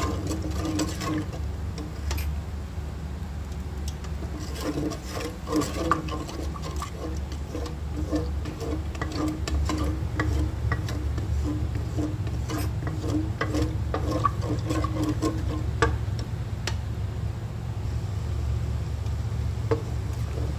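Wooden spoon stirring coconut milk in an enamel pot, with irregular small scrapes and taps against the pot, over a steady low rumble. The coconut milk is being heated and stirred toward a boil.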